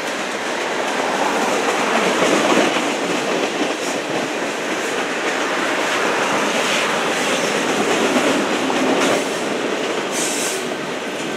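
Freight cars of a passing train rolling by: the steady clatter of steel wheels on rail, swelling and easing as the cars pass, with two brief high-pitched bursts near the end.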